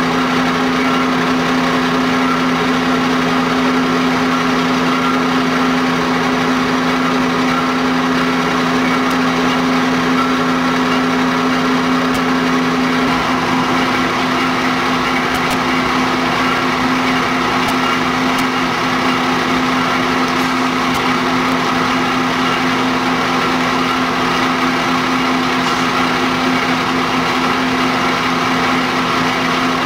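Fire engine's engine running steadily at the scene, a constant drone with a strong hum, its tone shifting slightly about thirteen seconds in.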